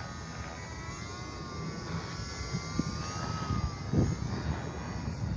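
Electric motor and propeller of an E-flite J-3 Cub model plane in flight, a steady whine that wavers gently in pitch as it passes. Low rumbling on the microphone, with a sharp thump about four seconds in.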